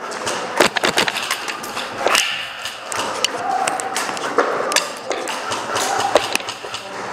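Irregular sharp clicks and knocks of airsoft fire: shots and BBs striking hard walls, with faint distant voices.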